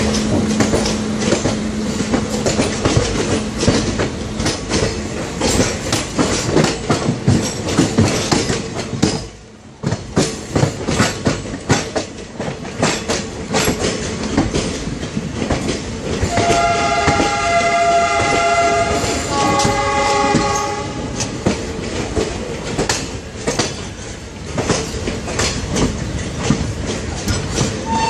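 HO-scale model train running past, its wheels clicking rapidly over the rail joints and turnout. A two-tone train horn sounds in two blasts about sixteen to twenty-one seconds in.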